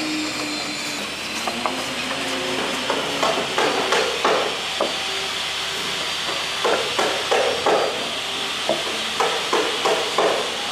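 Small Japanese wooden hand plane (kanna) shaving timber in a joint recess, in short rapid strokes that come in runs of a few per second with pauses between. A steady hiss runs underneath.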